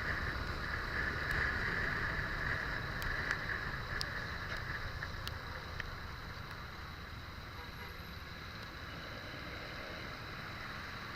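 Road traffic going by: a steady rush of vehicle noise that fades over the first half, with low rumble and a few faint clicks.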